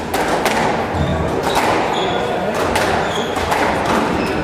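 Squash rally: the ball struck by rackets and smacking off the court walls in a series of sharp knocks, with short high squeaks of shoes on the wooden floor.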